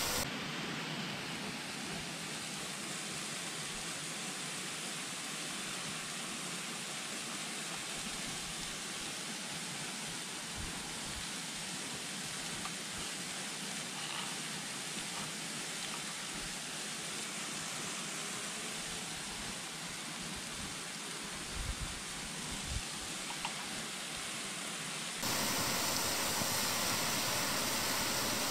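Steady rush of flowing river water, with a few faint clicks near the end, likely a knife tapping on a wooden plate. Near the end it changes abruptly to a louder, steady hiss.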